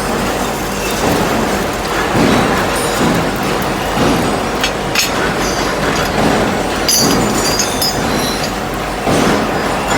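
Four-spindle drilling machine running and drilling steel scaffolding components: a loud, continuous machine din that swells again and again, with occasional sharp metallic clinks.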